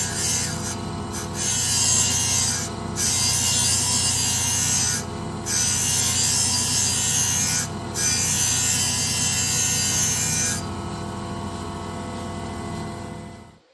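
Valve refacing grinder's motor running steadily while the grinding wheel is passed over a valve face again and again, each pass a hissing grind of a second or two with short gaps between. The machine shuts off near the end.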